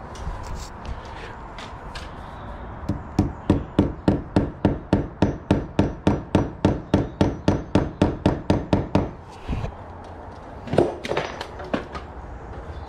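Hammer rapidly tapping the nail of a cable clip into a brick wall: about two dozen even strikes, about four a second, for some six seconds, then a few lighter knocks near the end.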